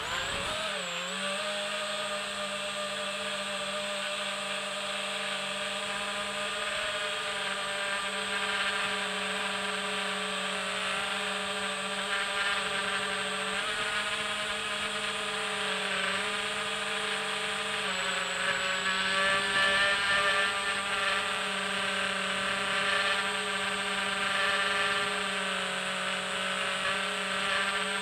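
Electric motors and propellers of a small multirotor drone whining steadily as it flies, recorded from the drone's own camera. The pitch swings as the motors spin up at takeoff, then dips briefly a few times with throttle changes, settling slightly lower about two thirds of the way through.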